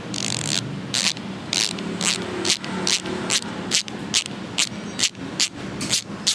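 Weapon Hammer ratchet-type bicycle hub freewheeling, a steady ratcheting buzz with louder clicks coming about two to three times a second. It is not very loud.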